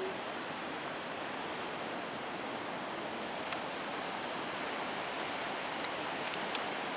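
Steady rush of Pacific surf on a big-swell day, an even wash of noise, with a few faint ticks in the second half.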